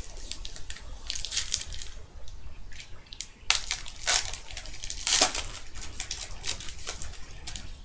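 Foil wrapper of a 2012 Rookies & Stars football card pack crinkling and tearing as it is ripped open, in irregular crackles, loudest about three and a half and five seconds in.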